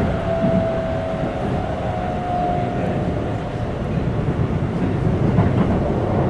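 Keikyu 1500 series electric train with Mitsubishi GTO-VVVF traction, running along the line as heard inside the passenger car. Steady rumble of wheels on rail, with a faint motor whine that rises slightly in pitch over the first few seconds and then fades.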